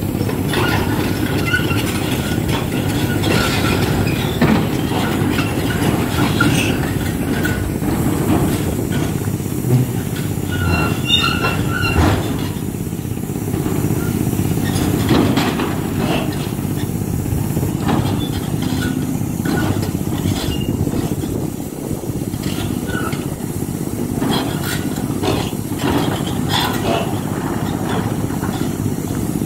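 Hidromek 390LC H4 excavator working a ripper through quarry rubble: steady heavy diesel engine noise, with scattered metallic clanks and short high-pitched steel squeals as the ripper and machine grind against stone.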